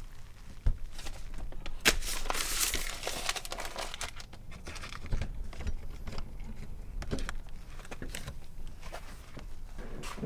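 A paper notice being pulled off a door and crumpled: irregular crinkling and crackling with a few sharp snaps, densest about two to three seconds in.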